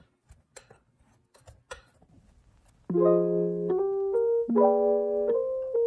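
A few faint, sharp clicks of a metal pastry blender against a glass mixing bowl as it cuts cold butter into flour. About three seconds in, soft piano music starts and takes over.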